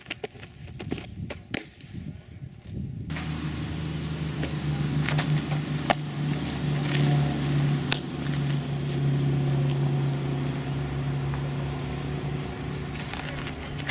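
A steady low motor hum that starts suddenly about three seconds in, with a few sharp knocks over it. Before it there is a quieter stretch with scattered sharp clicks.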